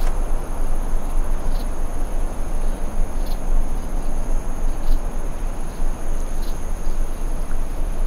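Insect chorus holding two steady high-pitched tones, with a short high chirp repeating about every second and a half, over a steady low rumble.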